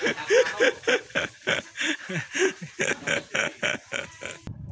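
A dog panting rapidly, about three to four breaths a second, with a short whine in each breath; it cuts off suddenly near the end.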